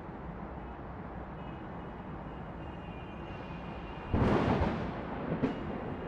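Steady hum of distant city traffic, broken about four seconds in by a loud, sudden thunderclap that rumbles off over about a second, with a second sharp crack a moment later.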